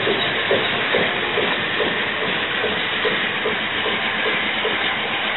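Amtrak passenger train standing at the station at night, giving off a loud, steady hiss, with a light ding repeating about three times a second.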